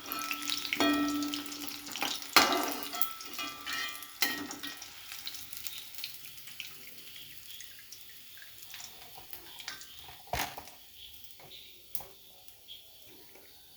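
Chicken sizzling in hot coconut oil as the fried pieces are lifted out, with sharp clinks of a utensil against the pan. The sizzling hiss fades over the first few seconds, leaving a faint hiss and a few scattered knocks.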